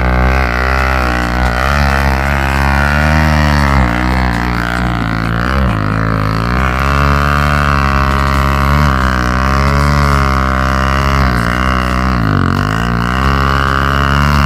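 Trail motorcycle engine revving up and down repeatedly under load, with the pitch dropping sharply twice, as the rider works the throttle to push the bike through difficult terrain.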